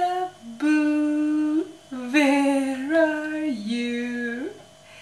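A woman singing a short wordless tune in long held notes that step down and back up in pitch, with a short vocal sound just before it starts.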